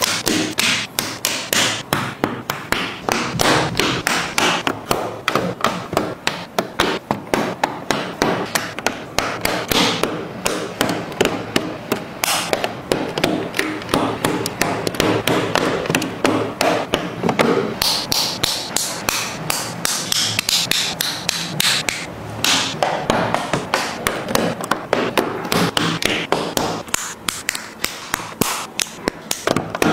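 LEGO bricks and plates being pressed onto studs and handled: a constant stream of small, sharp plastic clicks and taps.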